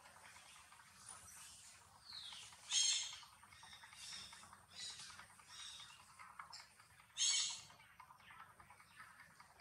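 High-pitched animal calls: two loud ones, each about half a second long and some four seconds apart, with fainter chirps between them.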